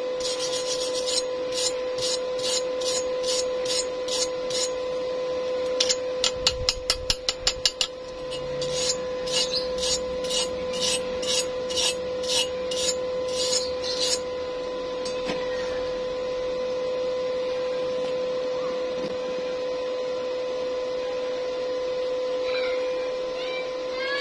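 Slag being scrubbed off a fresh stick weld on square steel tube with a hand wire brush: rhythmic rasping strokes about two a second, with a quick run of sharper strokes about six to eight seconds in, stopping about fourteen seconds in. A steady hum with a constant tone runs underneath.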